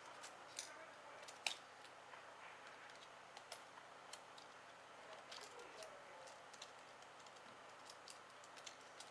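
Faint, scattered small clicks and light taps from handling small phone parts and tools, with one sharper click about a second and a half in, over near silence.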